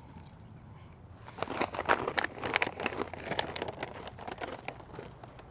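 A plastic snack bag crinkling and crackling in a hand, in quick irregular crackles that start about a second in and go on for a few seconds.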